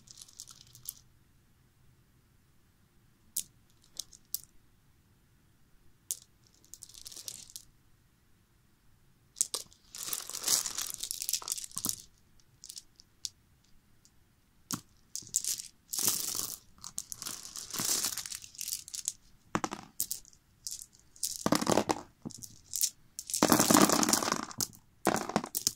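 Loose Spark pistol cartridges clinking and rattling against each other as a handful is scooped up, jiggled in the palm and let fall back onto the pile. A few scattered clicks at first, then irregular bursts of clinking that grow louder and busier in the second half.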